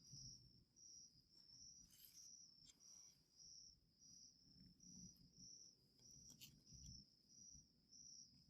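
A cricket chirping faintly with a steady, high-pitched pulse, about two chirps a second. A couple of soft clicks sound around two seconds and six and a half seconds in.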